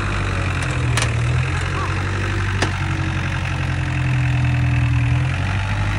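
Truck-mounted forklift's engine running steadily, a little louder around four to five seconds in. There is a sharp click about a second in and another a second and a half later.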